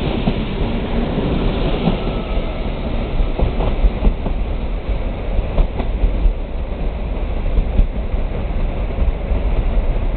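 Passenger coaches of a departing train rolling past and away, their wheels clicking over rail joints a few times in the first half. A steady low rumble carries on after the last coach has passed.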